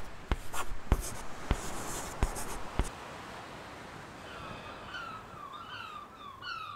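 Pencil writing on paper: scratchy strokes with five sharp taps in the first three seconds. From about four and a half seconds in, a bird chirps in a quick run of short falling notes.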